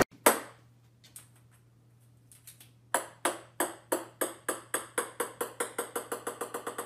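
A small plastic ball, a table-tennis type, bouncing on a hard wooden floor. One sharp tap comes near the start and a few faint taps follow. About three seconds in begins a run of ringing bounces that come faster and faster and slowly get quieter. A faint steady low hum sits underneath.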